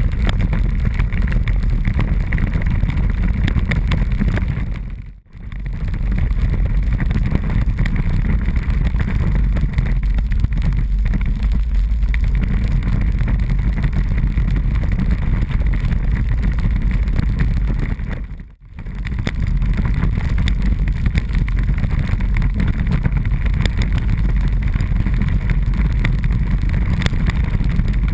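Loud, steady low rumble and rattle of a bicycle-mounted camera shaking over cobblestones as the bike rides along, with wind on the microphone. The noise fades out and back in twice, about five seconds in and near eighteen and a half seconds in.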